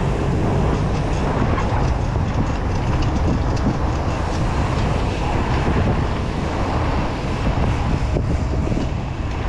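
Steady rumble of a bicycle rolling along a street, with wind buffeting the microphone.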